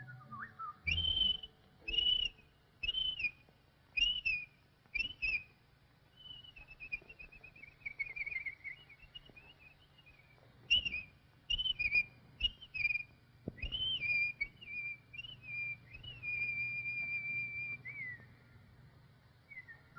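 Whistled cartoon bird calls: short chirping notes with quick pitch flicks, about one a second. A warbling trill follows, then another run of chirps, and a long held whistle that dips at the end.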